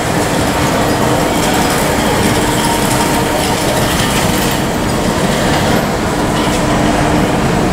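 Steady, loud airport apron noise: an even roar of machinery with a constant low hum.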